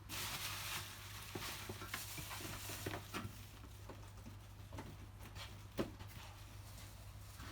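Rustling and scattered small clicks of handling, loudest in the first three seconds, over a steady low hum.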